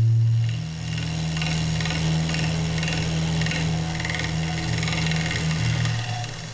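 Lathe motor humming steadily as a turning tool cuts a spinning cast epoxy-resin lampshade, peeling off long ribbon shavings. The rough cutting sound comes in about a second in and eases off near the end.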